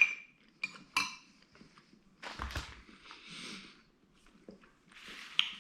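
Cutlery clinking sharply against a dish three times in the first second, each clink ringing briefly, followed by softer scraping and eating sounds.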